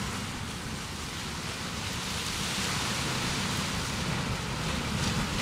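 Steady wash of surf breaking on a rocky shore.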